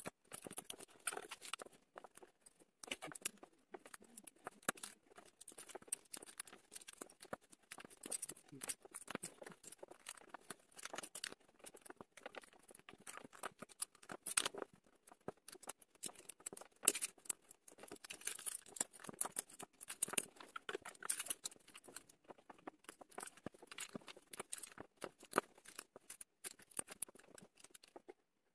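Plastic LEGO bricks clicking and clattering, many small irregular clicks as hands pick through a pile of loose pieces and press them onto the model.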